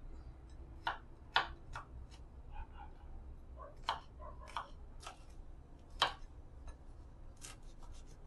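A kitchen knife slicing garlic cloves and then chilies on a wooden cutting board. Each cut ends in a sharp tap of the blade on the board, about a dozen taps at an irregular pace.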